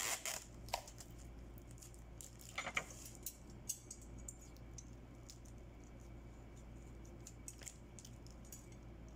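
Faint handling noises as a chocolate-and-rose bouquet is held and turned in the hands: a few light crinkles and clicks, mostly in the first three seconds, over a low steady hum.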